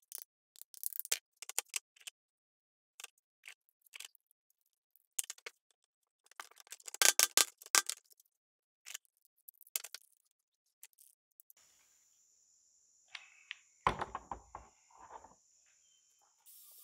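Scattered clicks and scrapes of a small metal spatula against a tin can and a steel workbench as adhesive is worked onto a wooden knife handle, with a dense run of scraping about seven seconds in. Heavier knocks and clicks near the end as bar clamps are closed on the handle.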